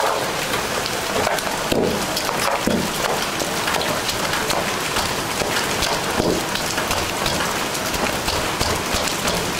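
Steady rain falling on surfaces, an even, unbroken hiss.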